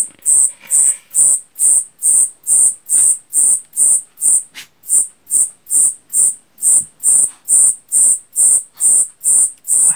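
Cicada singing in a bedroom at night: loud, shrill, evenly repeated pulses, about two and a half a second, like an alarm clock.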